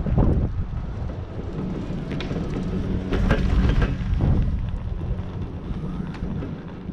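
Wind buffeting the microphone on a moving high-speed six-pack chairlift, over the lift's low rumble. The rumble swells just after the start and again around three to four seconds in, with a few sharp clicks, as the chair passes a lift tower.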